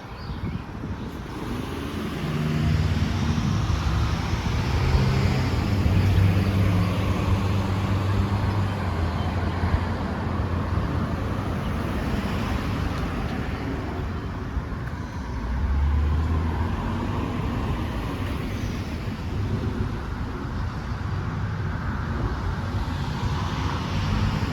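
Road traffic on a street: cars passing, their engines and tyres swelling up and fading, loudest a few seconds in and again about sixteen seconds in.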